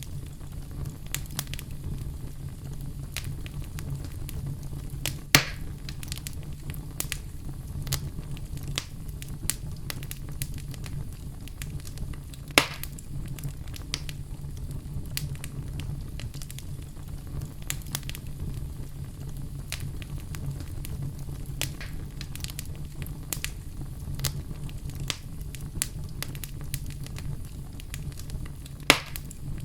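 Campfire crackling: a steady low rumble of burning wood with frequent sharp crackles and three louder pops, one about five seconds in, one about twelve seconds in and one near the end.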